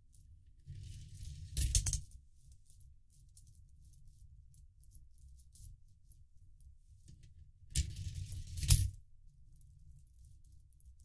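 Coins dropped one at a time into a 3D-printed plastic coin sorter, each rattling through it with a clatter that ends in a sharp clink. This happens twice, about a second in and about eight seconds in. Faint clicks of coins being handled come in between.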